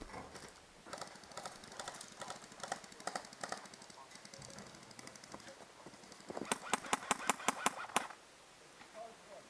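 An airsoft gun firing a quick string of about ten sharp cracks, roughly six or seven a second, over a second and a half, starting past the middle. Before it come irregular lighter clicks and rustles.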